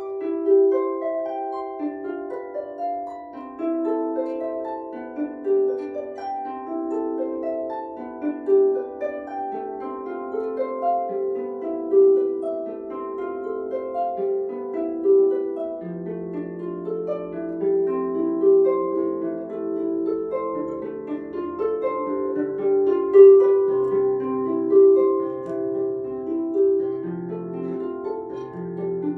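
Solo harp being plucked: a melody of ringing notes in the middle register, with lower bass notes joining about halfway through.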